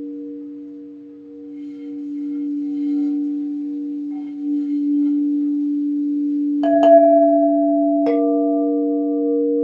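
Crystal singing bowls ringing in long, steady, pure tones, with faint high tinkling in the first few seconds. About two-thirds of the way in a bowl is struck, then another about a second and a half later, and each adds a new sustained tone over the drone.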